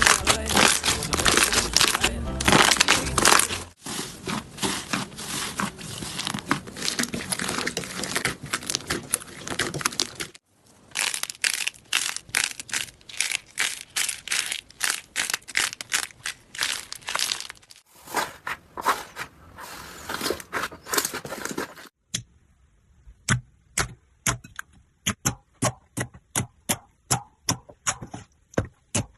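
Slime being squeezed and pressed, making dense crackling and popping in several clips joined by sudden cuts. Near the end it turns to separate sharp crackles, a few per second, with short quiet gaps between them.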